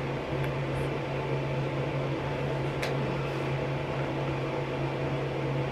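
Steady low hum of a ventilation fan in a small room, running at an even level, with one faint tick about three seconds in.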